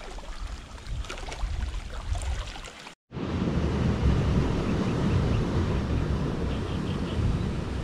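Water rushing out of a concrete pipe outflow through a grate, with small clicks from hands handling a net. About three seconds in it cuts off abruptly, and a louder, steady low rushing noise takes over.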